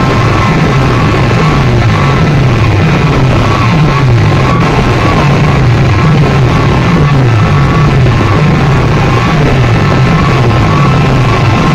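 Very loud DJ music played through large loudspeaker sound systems, with a bass line that repeatedly falls in steps and a steady high tone that dips at regular intervals.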